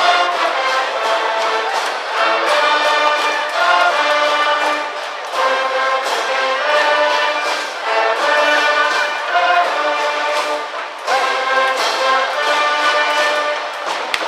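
High-school brass band playing a loud baseball cheering tune in the stands, brass over a steady percussion beat.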